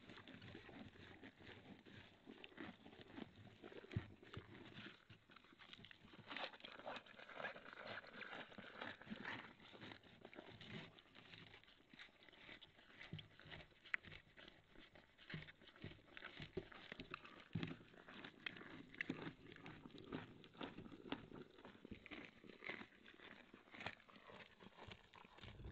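Faint, irregular crackles, clicks and rustles from a deer moving and nosing about right against a trail camera.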